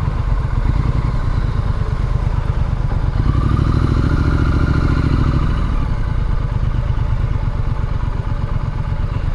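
Triumph Street Scrambler's 900 cc parallel-twin engine running while riding. The engine note swells and becomes fuller from about three seconds in, then eases off again around six seconds.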